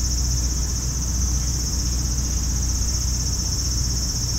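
A chorus of cicadas buzzing steadily in a high, finely pulsing drone, over a steady low rumble.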